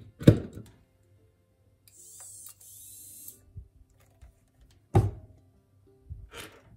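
A power-supply plug knocking home into a wall socket, the loudest sound, followed by a short high hiss in two parts and a couple of knocks as a Super 8 movie camera is picked up and handled.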